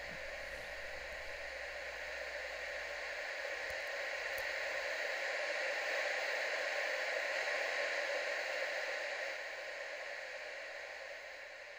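Television static hiss, a steady noise that swells to its loudest around the middle and fades away toward the end.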